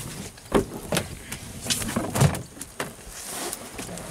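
Irregular knocks, thumps and a few sharp clicks from a metal snake catch pole and feet on a fibreglass boat as a snake is handled on the pole.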